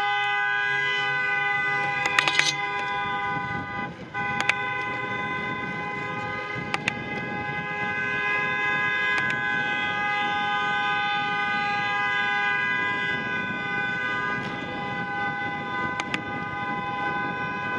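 A car horn held down almost without pause, a steady multi-tone blare that breaks off briefly about four seconds in and then carries on. The horn is an SUV's, leaned on in anger at a cyclist ahead. A few sharp clicks sound over it.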